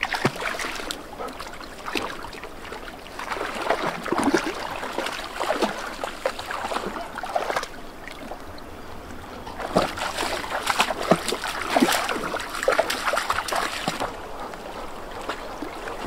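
Golden retrievers wading and splashing through a shallow, fast river, irregular splashes over the steady rush of the current, coming in two busier spells.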